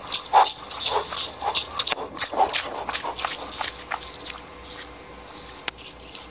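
Rustling and clicking handling noise from a phone held at arm's length while walking, busiest over the first four seconds, then thinning to a single sharp click near the end.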